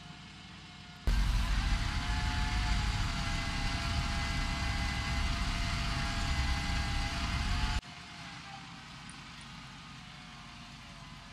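Engine of a truck-mounted boom crane running steadily. About a second in, a much louder stretch with heavy low rumble and hiss cuts in, then cuts off suddenly several seconds later.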